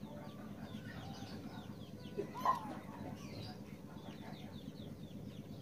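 Birds chirping over and over in short falling notes, with one short, louder call about two and a half seconds in.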